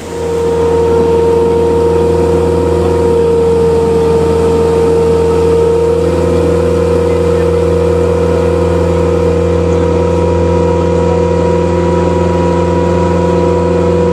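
A water taxi's engine running at a steady cruise, heard from on board: a loud, even drone with a steady high tone over it. It comes in abruptly.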